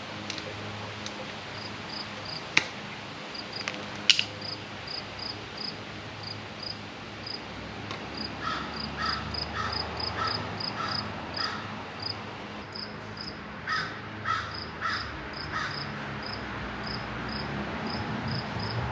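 An animal chirping steadily: short, high chirps about twice a second. Between about eight and sixteen seconds in, a lower pulsed call joins in with the chirps. A few sharp clicks fall in the first four seconds, the loudest about four seconds in.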